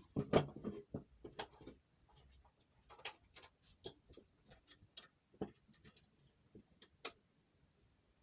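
Light, irregular clicks and knocks of small metal parts being handled and fitted together while a homemade angle-grinder stand is assembled from a clamp and an upright; they stop about seven seconds in.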